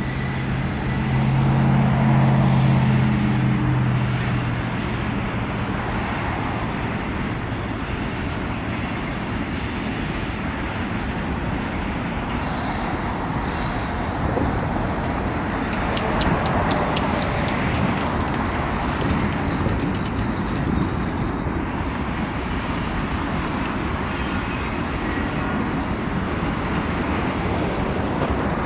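Freight train of tank cars and coal gondolas rolling past: the steady rumble and rattle of steel wheels on rail. A low drone swells at the start, loudest about two seconds in and gone by about four seconds, and a run of rapid clicks comes about halfway through.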